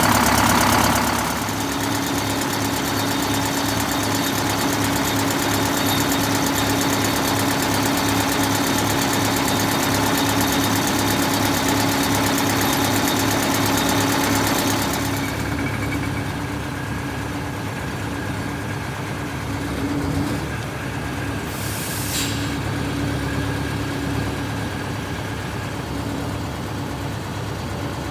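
Detroit Diesel 8V71 two-stroke V8 diesel in a 1968 MCI 5A coach idling steadily with an even pulse, its valves and injectors freshly adjusted. It sounds duller and farther off after about halfway, and a short hiss comes near the end.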